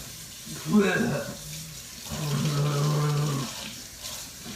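A man's wordless vocal sounds: a short one about a second in, then one held at a steady pitch for over a second. Under them runs a steady hiss of water running from a tap into a sink.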